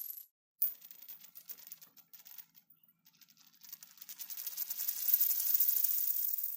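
A coin spun on a hard surface. It starts sharply about half a second in and rattles sparsely and irregularly. About halfway through the rattle quickens and grows louder as the coin wobbles down flat, then stops abruptly.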